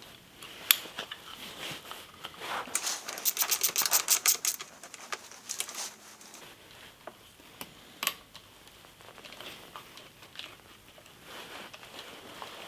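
Small metal parts and hand tools being handled during motorcycle reassembly: scattered clicks and knocks, with a quick run of about ten clicks a second around the middle and a sharp knock twice.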